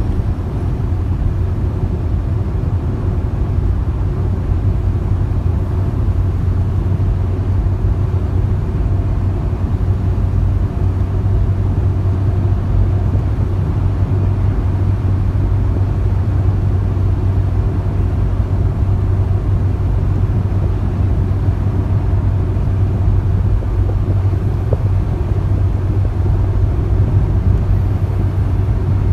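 Steady road and engine noise inside a car's cabin while driving at highway speed, a constant low hum.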